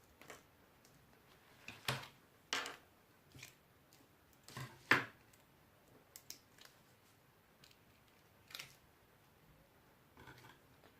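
Craft supplies being handled at a table: about ten short, irregular crinkles and snips, the loudest around two and five seconds in.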